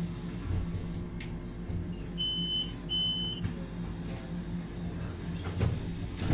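Inside a city bus, two high electronic beeps, each about half a second long and close together, sound a little over 2 s in. Under them the bus's engine hums steadily.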